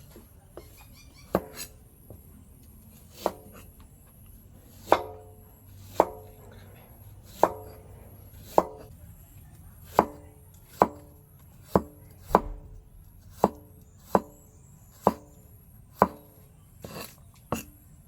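A knife chopping on a cutting board with slow, single, unevenly spaced chops, roughly one a second. Each chop is a sharp knock with a short ring after it.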